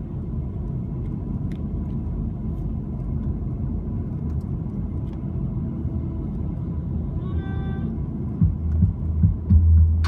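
Steady low rumble of road and engine noise inside a car driving on a paved road. A brief pitched sound comes about seven and a half seconds in, and from about eight and a half seconds irregular heavy low thumps take over as the loudest sound.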